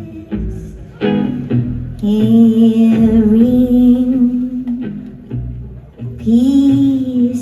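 Live band playing, with bass, drums and guitar under a singer who holds a long steady note about two seconds in and another near the end.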